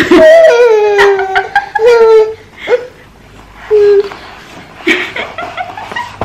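Laughter: one long falling laugh, then several short laughs with pauses between them.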